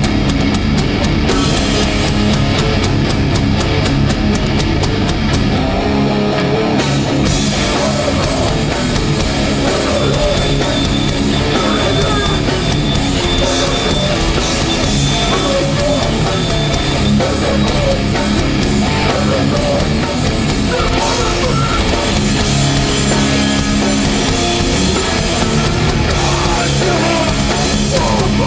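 A heavy hardcore band playing live at full volume: distorted electric guitars and a drum kit, loud and unbroken.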